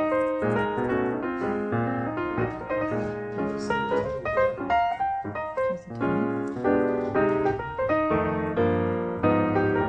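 Background music: a piano or keyboard melody playing steadily.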